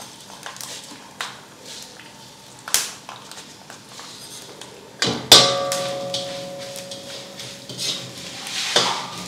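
Cumin seeds poured into hot oil in a steel kadai, frying with other whole spices for rasam powder, with a faint sizzle under a perforated steel ladle stirring. The ladle knocks on the pan a few times; the loudest knock, about five seconds in, leaves the kadai ringing briefly.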